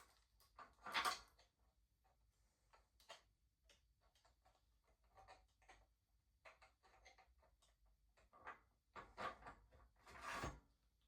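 Scattered light clicks and knocks, with a few louder rustling bursts near the end.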